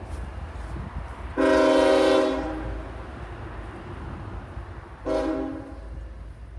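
Locomotive air horn sounding one long blast about a second and a half in, then a shorter blast near the end, over a low steady rumble.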